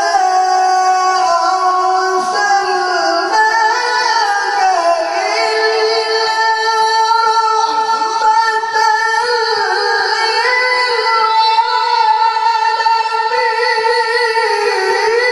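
A man's voice recites the Quran in the melodic tilawat style, holding long high notes and bending them through ornamented turns.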